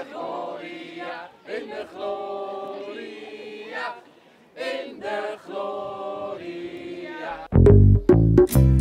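A group of people singing a birthday song together in long held notes. Near the end, loud upbeat music with heavy bass and percussion cuts in.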